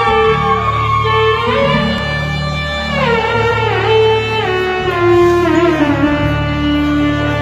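Live Afrobeats band playing: a melody of held notes that step and slide in pitch, led by guitar, over a steady bass line.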